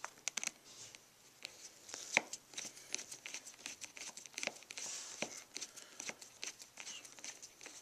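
Screwdriver driving a small screw through a plastic seat side cover into the bolt beneath: irregular small clicks and scrapes of metal on plastic.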